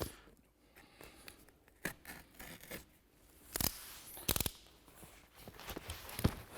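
A knife cutting into roofing underlay membrane, with scraping and rustling handling of the sheet; two short, louder rasps come a little past halfway.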